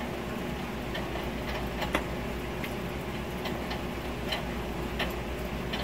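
A person chewing a sandwich with the mouth close to the microphone: scattered soft mouth clicks and smacks, roughly one a second, over a steady low hum.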